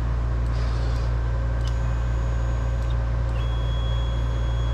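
CNC plasma table's stepper motors whining as the gantry makes two moves: a high whine for about a second, then a lower one from about halfway through, each starting and stopping with a click. Under them, a steady low machine hum.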